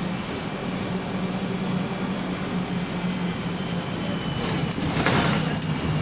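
A bus running, heard from inside: a steady low engine hum with a thin high whine. Near the end a louder rushing sound swells up for a second or two.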